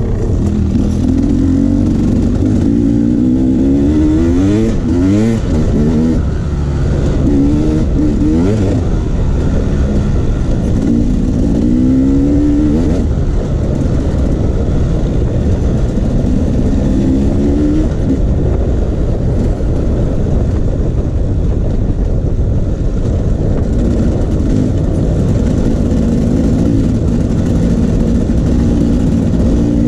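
Off-road vehicle engine under load on a trail, revving up and easing off again and again. Its pitch climbs in short runs every few seconds over a constant low rumble.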